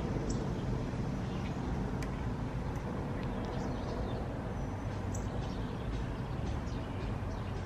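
Steady low background rumble, with a few faint short high chirps and ticks now and then.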